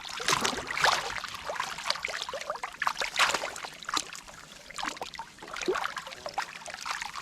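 Shallow canal water splashing and sloshing irregularly, with many short, sharp wet slaps.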